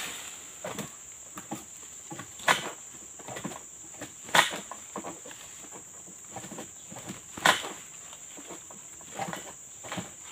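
A steady high-pitched insect drone, broken by three sharp cracks as a long-pole harvesting sickle cuts at an oil palm's frond and bunch stalks.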